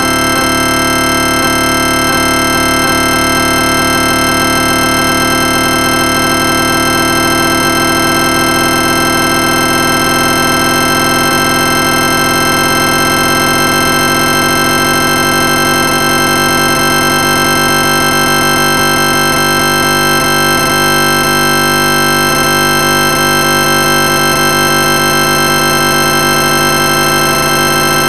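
Black MIDI rendering of a C major chord: C, E and G sounded across nearly every octave at once, with notes retriggered so fast that they merge into one dense, loud, unbroken sustained chord.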